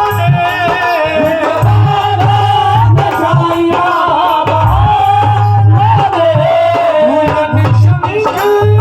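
Devotional bhajan singing with band accompaniment: a voice holds long, wavering notes over a repeating drum beat and percussion.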